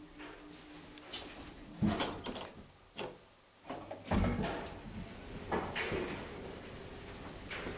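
Car doors and mechanism of a 1978 ZREMB traction elevator clunking and clicking as the doors shut, a string of separate knocks with a heavy thud about four seconds in.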